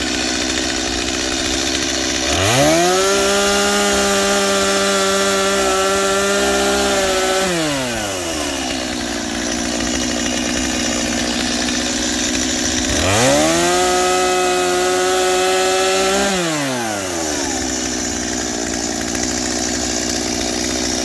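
Stihl chainsaw idling, then opened to full throttle twice, each time holding a high, steady pitch for several seconds while it cuts through a firewood log, and dropping back to idle between cuts.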